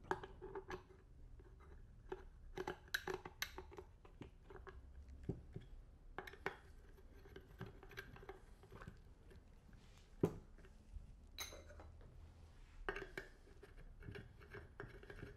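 Faint clicks, taps and scrapes of IKEA Not floor lamp pole sections being fitted into the base and screwed together by hand, with a few sharper clicks here and there, the sharpest about ten seconds in.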